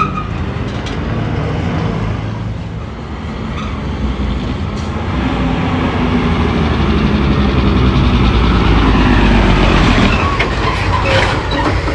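Heavy diesel truck engine running under load with road rumble, swelling in loudness about five seconds in and then holding steady, with a few short rattles near the end.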